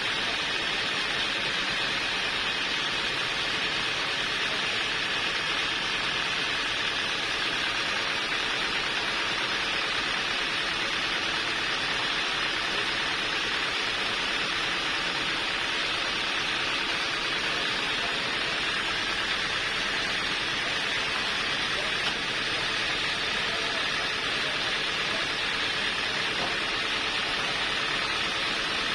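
Sawmill saw machinery running with a steady, even noise that does not change.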